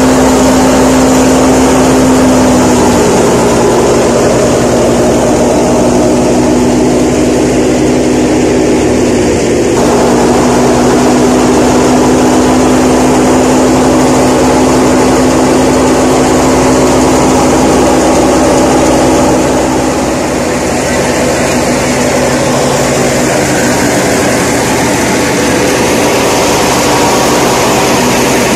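Tractor-driven wheat thresher running steadily at full speed, the machine's hum mixed with the tractor's engine, its level stepping down slightly about two-thirds of the way through.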